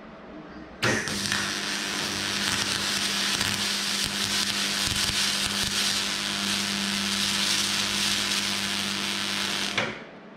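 Arc welder running a continuous weld on an aluminium tube frame: a steady hiss and buzz over a constant low hum, starting sharply about a second in and cutting off just before the end.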